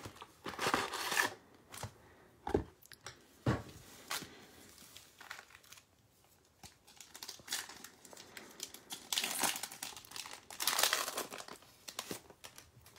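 Foil Prizm basketball card packs crinkling as they are handled and set down, with a couple of light knocks. Near the end, louder crinkling and tearing as a foil pack wrapper is ripped open.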